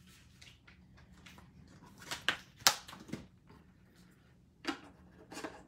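A few light clicks and knocks of craft supplies being picked up and set down on a table, the sharpest about two and a half seconds in, over a faint steady hum.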